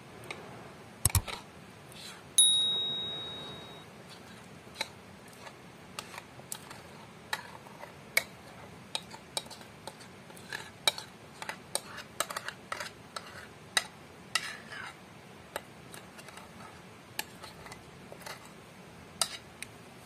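Kitchenware handling while cake batter is poured from a ceramic bowl into a nonstick frying pan: a knock about a second in, then a bright ringing clink of dishware that fades over about a second and a half, with irregular small sharp clicks and ticks throughout.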